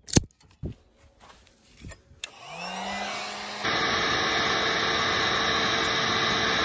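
A wire cutter snips once at the start, followed by a few small clicks. About two and a half seconds in, a heat gun switches on with its fan spinning up in a rising whine. Just under four seconds in it grows louder and runs steadily, blowing hot air onto solder-seal heat-shrink butt connectors on a spliced wire.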